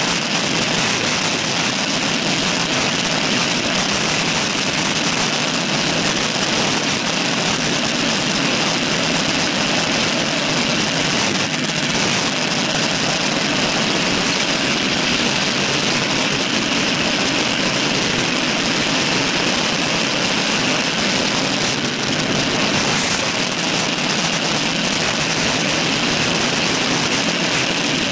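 Steady rush of wind over a handlebar-mounted camera's microphone while cycling at speed.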